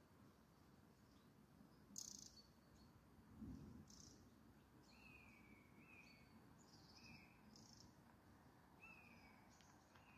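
Faint bird calls over near-silent woodland: a few short, falling chirps repeated through the second half, with brief higher notes in between. There is a soft low bump about three and a half seconds in.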